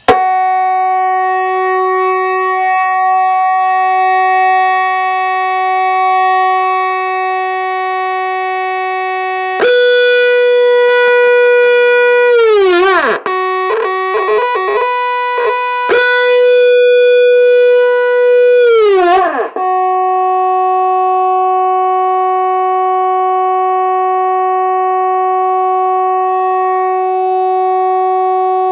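Point Abino Lighthouse's 24-volt electric fog horn sounding a loud, steady, buzzy tone. About ten seconds in it switches to a higher tone that wavers and dips in pitch several times, then drops back to the first steady tone about twenty seconds in.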